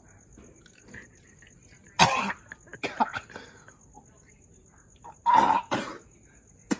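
A person coughing: two pairs of short coughs, about three seconds apart, then a sharp click just before the end.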